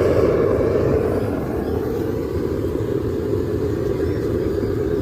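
A forge running with a steady low rumble.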